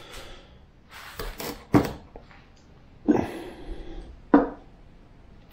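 Handling sounds: several sharp knocks and clicks with rustling between them as a camera on a flexible tripod is shifted and a small plastic light-up ball is picked up from a concrete ledge. The loudest knock comes a little under two seconds in.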